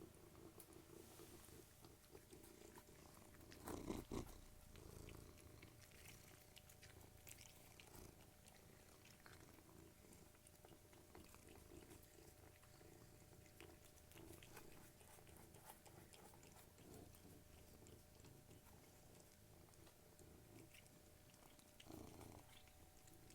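Cats purring softly while crunching and chewing their food, with small scattered crunch clicks over a steady low purr. A brief louder bump comes about four seconds in and again near the end.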